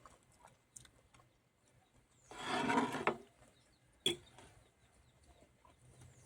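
A brief animal call lasting under a second, about two seconds in, then a single sharp click about four seconds in.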